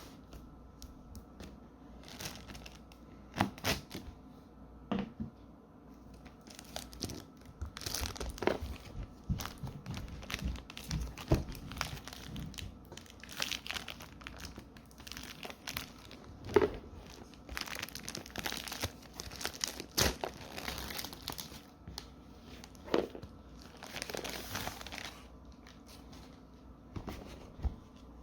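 Plastic wrapping on a card-game gift bundle box being torn open and crinkled, with irregular rustling and scattered sharp taps of cardboard being handled.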